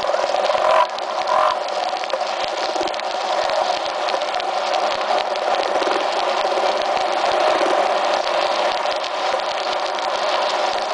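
Frog chorus: many frogs calling at once in a dense, continuous pulsing din, with two louder calls standing out about a second in.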